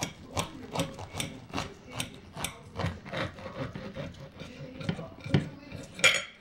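A knife sawing back and forth through a sandwich, about two and a half strokes a second, with a louder stroke near the end.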